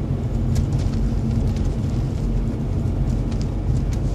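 Steady low rumble of a car being driven, heard from inside the cabin: engine and road noise, with a few faint scattered ticks.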